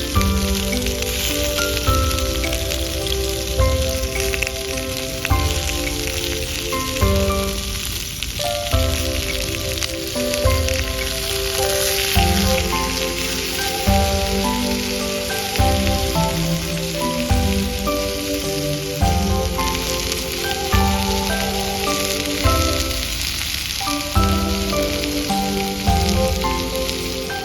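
Background music with melodic notes and a slow, regular beat, over a steady sizzling hiss of beef searing over a campfire.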